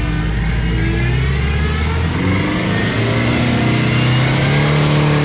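Modified four-wheel-drive's engine running under load, then revving up, its pitch climbing through the second half.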